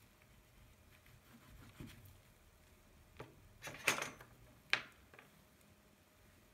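Faint rubbing of fingers and pastel on paper, then a cluster of light clicks and taps a little over three seconds in, and one sharp click just after, as a pastel stick is handled and set down on the table.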